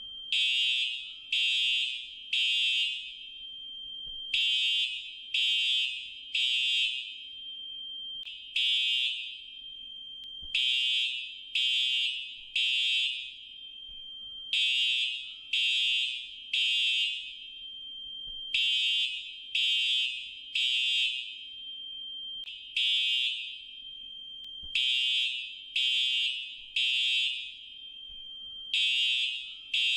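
Fire alarm sounding a high-pitched electronic beep, about one a second, mostly in groups of three with a short pause between them, the pattern of an evacuation signal. Twice a single beep stands in place of a group.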